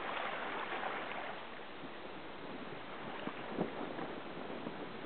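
Water rushing and lapping against a sea kayak's hull as it moves along, with wind buffeting the microphone.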